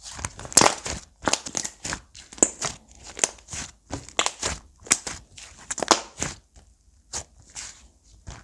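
Slime being squeezed and pressed by hand, giving off irregular crackling and crunching pops several times a second.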